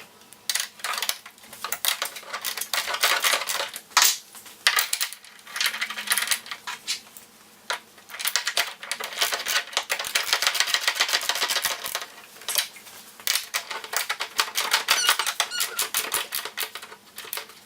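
Hand ratchet wrench clicking rapidly in runs while driving and tightening 15mm bolts on a golf cart mirror bracket, with a few squeaks.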